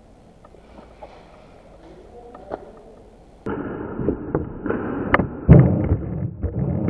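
Quiet with a few faint clicks, then about three and a half seconds in a sudden rise to rustling noise with a quick run of sharp knocks and pops, the loudest about five and a half seconds in.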